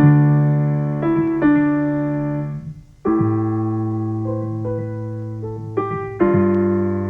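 Yamaha Piaggero NP-12 portable keyboard played in a slow improvisation: held chords over a sustained bass note, a new chord struck about every three seconds, with a few single melody notes between them.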